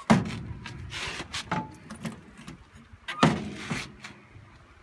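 Hinged cover panels on a Case 580D backhoe's dash console being swung open and knocking against the dash: a loud clank right at the start, lighter rattles, and another loud clank about three seconds in.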